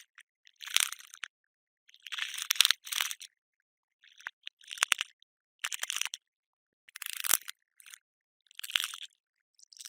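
Cockroach sound effect: short, dry, scratchy scrabbling bursts of legs on a surface, about one a second, with silence between.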